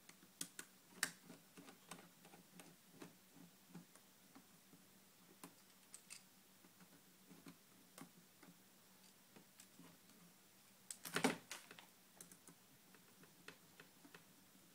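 Faint, scattered clicks and ticks of a mini screwdriver turning out small laptop screen screws, with a louder cluster of clicks about eleven seconds in.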